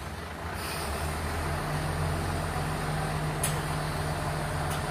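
Truck-mounted boom crane at work: the truck's engine runs steadily, driving the crane's hydraulics, and its hum grows louder about a second in as the load is lifted. Two brief clicks come in the second half.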